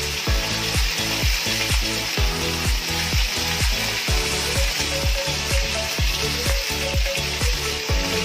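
Floured fish fillets sizzling as they fry in hot oil, a steady hiss, under background music with a steady beat of about two thumps a second.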